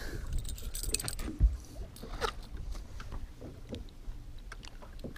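Water sloshing and small splashes against a boat's side as a pike is gripped and unhooked in the water at the gunwale, with scattered light clicks and a dull knock about a second and a half in.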